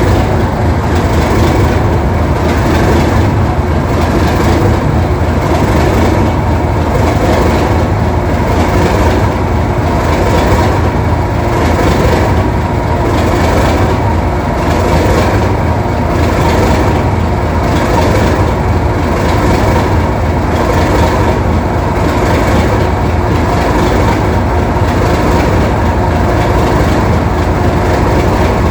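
English Electric DG-class diesel locomotive engine running steadily, with a loud, even rumble.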